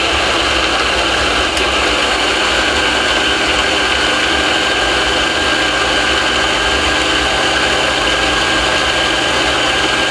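Electric kitchen blender running steadily, blending coconut pieces in water. A loud, even motor whine with steady high tones, unchanging throughout.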